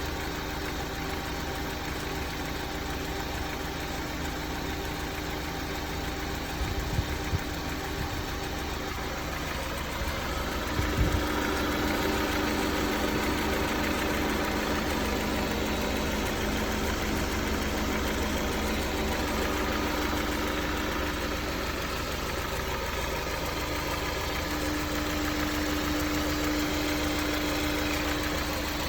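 Honda S2000's four-cylinder engine idling with the hood open, with a rattle or knock that the owner suspects is timing chain tensioner rattle or piston slap. It grows a little louder about ten seconds in.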